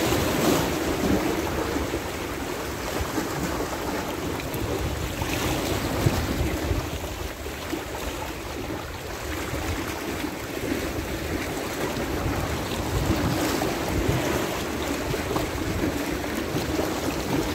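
Sea waves washing against shore rocks, swelling louder every several seconds, with wind buffeting the microphone in a low rumble.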